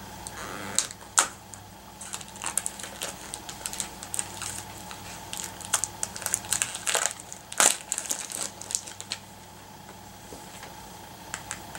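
Plastic toy packaging crinkling and clicking as a small blind basket is handled and opened by hand: scattered irregular crackles, a few louder than the rest about a second in and around seven seconds in.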